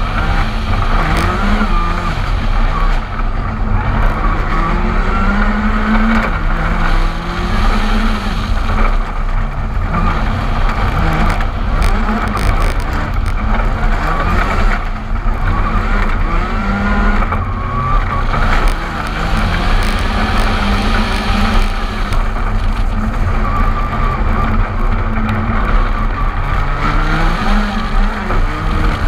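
Ford Fiesta R5 rally car's turbocharged 1.6-litre four-cylinder engine driven hard, its pitch repeatedly rising as it accelerates through the gears and dropping back for corners, heard from outside the car.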